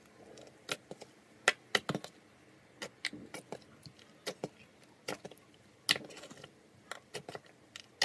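Slime being pressed and worked by hand, giving sharp, irregular clicks and pops.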